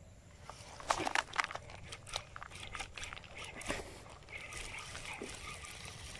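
Handling noise of a spinning rod and reel: a cluster of sharp clicks and knocks about a second in, then more scattered clicks with some splashy sounds. A steady high hum joins from about four seconds in.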